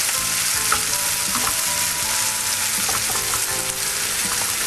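Baby clam meat sizzling in hot oil with garlic and chili paste as it is stir-fried, with light scraping from the stirring.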